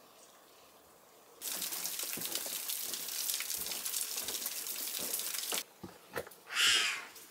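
Water running or pouring for about four seconds, starting and stopping abruptly, followed by a few knocks and a short splash near the end.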